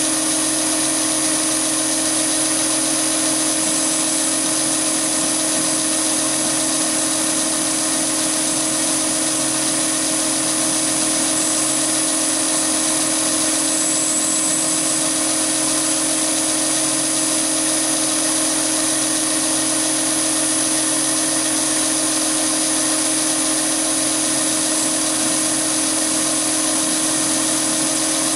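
Chinese mini lathe running steadily under cut as a solid carbide boring bar bores 316 stainless steel: a constant machine hum with a high whine over it.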